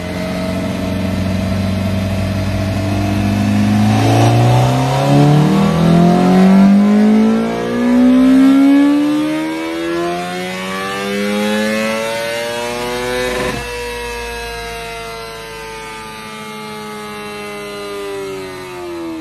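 Superbike inline-four engine pulling hard in fourth gear on a dyno. It holds a steady pitch for about four seconds, then rises smoothly and continuously as speed climbs. About 13 seconds in the throttle is closed and the pitch falls away gradually.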